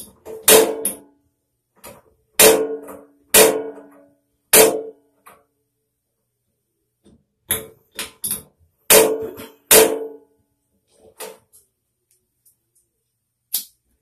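About a dozen sharp metallic clicks at irregular intervals, each with a short ringing tail, from the piezo igniter of a Kozy-World wall gas heater being pressed repeatedly to light the pilot.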